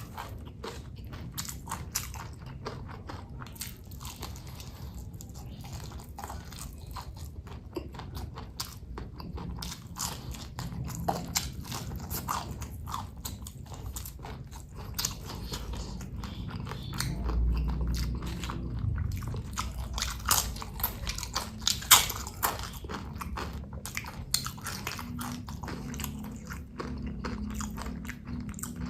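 Close-miked chewing of crunchy food, crispy chips and raw chili, with many sharp crunches in quick succession and one loudest crunch about three-quarters of the way through.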